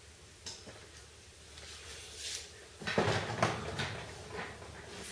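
Clinks, knocks and rattling of metal tools and parts being handled on a workbench, with a louder clatter about three seconds in.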